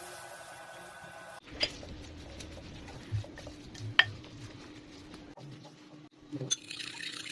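Kitchen utensils knocking and clinking against dishes during food preparation, with scattered sharp clicks and a busier run of clinks near the end. A steady hum cuts off about a second and a half in.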